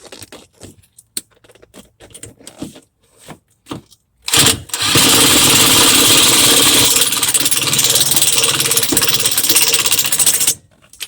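A few light clicks and knocks of parts being fitted, then the Honda Pioneer 700 UTV's engine starting about four seconds in, running loud and steady for about six seconds, and cutting off suddenly near the end.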